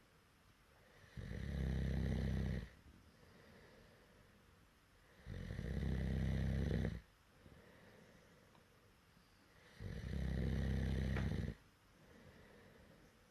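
Loud snoring: three long snores about four seconds apart, each lasting about a second and a half, with quiet gaps between them.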